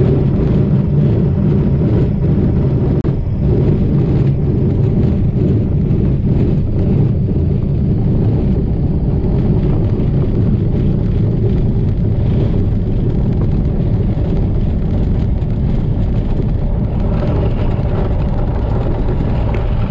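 Pipistrel Virus light aircraft's engine and propeller running steadily, heard inside the cockpit, as the plane rolls over a grass airfield with scattered light knocks from the ground roll.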